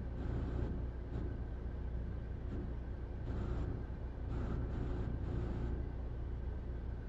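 Steady low engine drone with a faint, steady higher whine over it and brief rushes of hiss now and then.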